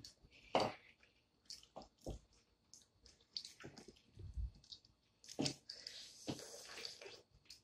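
Cajun boiled peanuts being shelled by hand and chewed: scattered soft cracks, clicks and squishes of wet shells splitting. A longer hiss runs from about five and a half seconds in to near the end.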